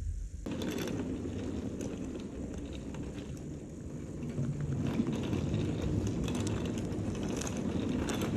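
Road noise of a moving car: a low rumble that changes suddenly, about half a second in, to a louder, fuller rush with scattered light ticks.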